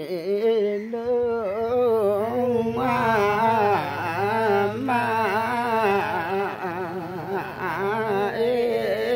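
A voice singing without a break, its pitch wavering and bending through an ornamented melody.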